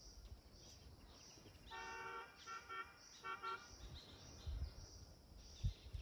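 A horn sounds three times, one longer blast followed by two short ones. Throughout, a faint high chirping repeats about twice a second, and low rumbling thumps come near the end.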